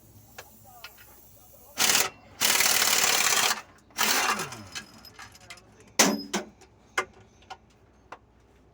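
Power tool running in three short bursts during clutch removal on a truck, the last one spinning down with a falling whine; then a sharp metal knock and a few light clinks of parts and tools.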